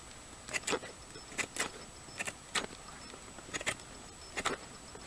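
Double-edged Fairbairn-Sykes commando dagger shaving curls off a stick of wood: about seven short, sharp scraping strokes, several of them in quick pairs.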